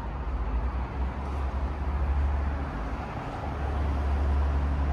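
Steady low rumble of a vehicle in motion, with an even background hiss.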